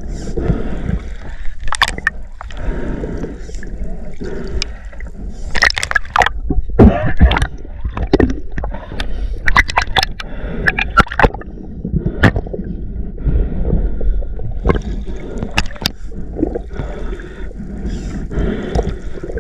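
Underwater sound heard through a camera housing as a freediver hauls in the shooting line of a reel speargun: a low gurgling, bubbly rumble with irregular sharp clicks and knocks throughout.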